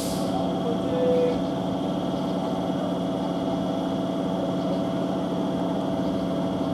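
Electric multiple unit (EMU) local train standing with its onboard equipment running, giving a steady hum with several held tones. A brief faint tone sounds about a second in.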